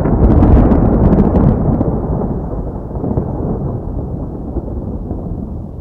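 Thunder: a few sharp cracks in the first second and a half over a deep rumble, which then rolls on and slowly fades away.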